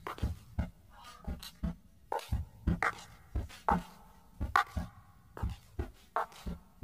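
Irregular run of short clicks and knocks, about two to three a second, some with a brief pitched tone, from a distorted cartoon soundtrack.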